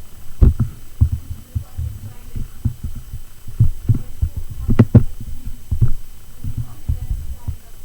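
Irregular low thumps and knocks, two or three a second, a few with a sharper click on top.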